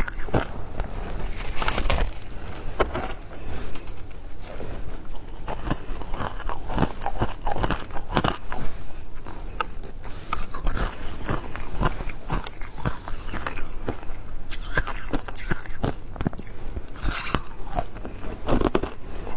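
Frozen shaved ice being bitten and chewed close to the microphone: a run of crisp, irregular crunches and crackles.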